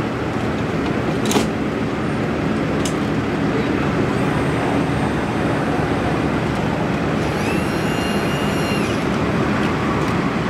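Steady rumble of idling emergency vehicles and freeway traffic, with a few faint clicks and a brief high-pitched tone about three-quarters of the way through.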